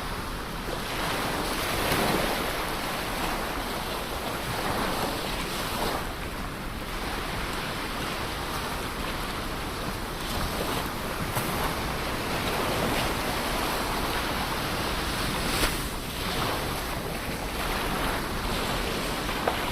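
Ocean waves breaking and washing on the shore, a continuous rushing surf that swells and eases, with wind noise on the microphone.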